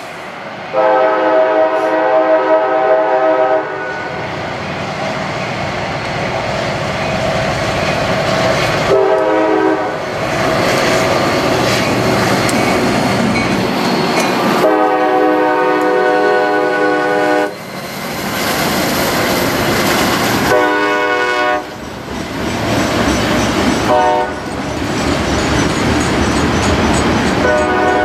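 CSX freight train led by two diesel locomotives passing close by, its multi-chime air horn sounding a series of long and short blasts for a grade crossing. Between the blasts the diesel engines run loud and the wheels clatter over the rail joints, getting stronger as the train goes past.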